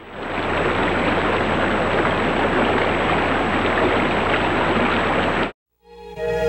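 Rushing stream water tumbling over rocks, a steady rush that fades in at the start and cuts off abruptly near the end. After a brief silence, sustained keyboard music begins.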